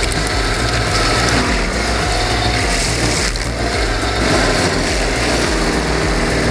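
Engine of a Rayco RG1645 stump grinder running steadily at working speed.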